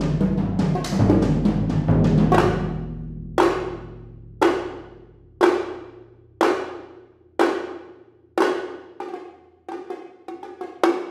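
Percussion trio on bass drums, toms, congas and bongos: a dense, rumbling run of drum strokes gives way about two seconds in to single loud strokes about once a second, each ringing out and dying away. Near the end come quicker, lighter strokes.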